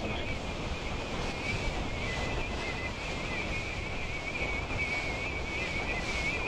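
Wind buffeting the microphone over open sea water, with a thin high whine that wavers in pitch.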